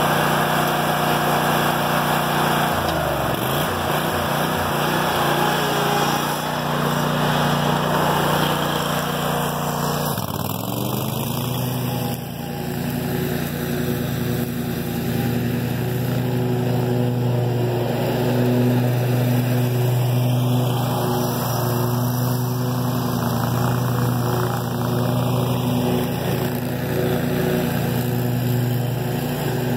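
Scag Tiger Cat II zero-turn mower's engine running steadily. Its pitch dips about ten seconds in and then holds steady again.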